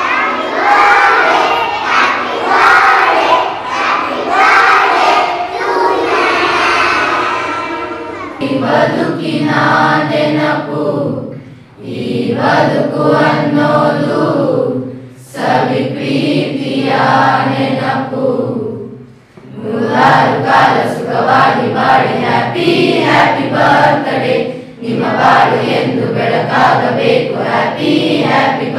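A group of schoolchildren singing together, first young children's voices, then from about eight seconds in a class of older students singing in unison in phrases broken by short pauses.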